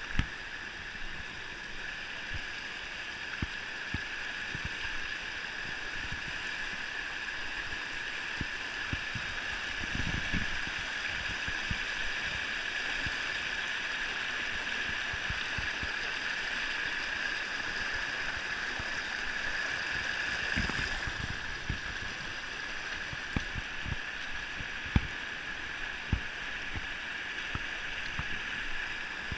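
Shallow river rapids rushing steadily over rock ledges, with scattered knocks and thumps, the sharpest right at the start and about 25 seconds in.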